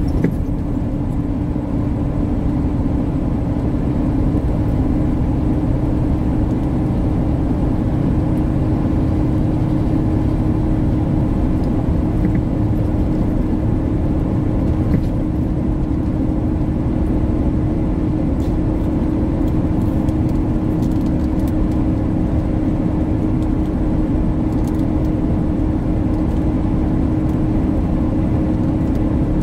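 Inside a tractor-trailer cab at highway cruising speed: a steady drone of diesel engine and road noise, with a constant low hum.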